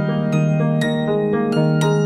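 Background music: a slow, gentle keyboard melody with a new note struck about every half second.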